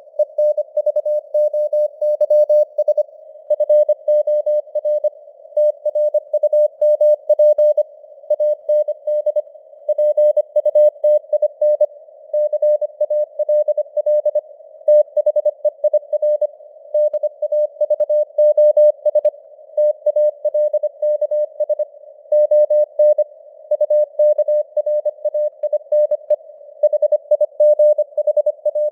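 Morse code sent at 25 words per minute as a single tone of about 600 Hz keyed on and off in rapid dots and dashes, over simulated radio noise that continues between the characters. The code spells out news headlines.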